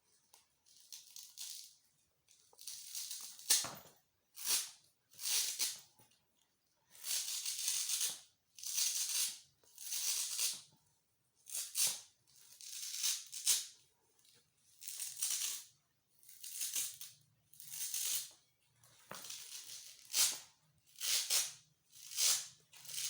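Velcro being ripped apart again and again, a crunchy tearing sound about seventeen times, some rips short and some drawn out over a second, with brief pauses between them.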